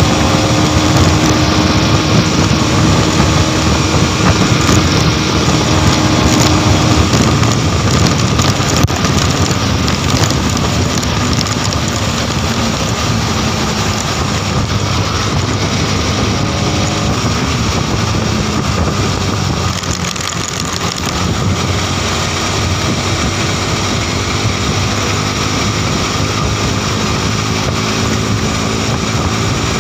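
Modenas NS200's single-cylinder engine running under hard acceleration, heard from the rider's seat under heavy wind rush on the microphone. The engine note dips briefly about two-thirds of the way through.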